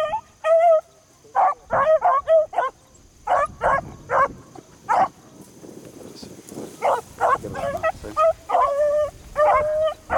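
Beagles baying in bursts of short barks and yips with pauses between, some notes held longer near the end: rabbit hounds giving tongue on a scent line.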